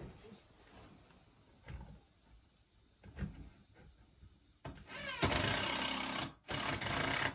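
Cordless drill driving a screw into a wooden 2x4 counter leg: a few light knocks, then about five seconds in the motor spins up with a rising whine, runs for about a second and a half, stops briefly and runs again for under a second.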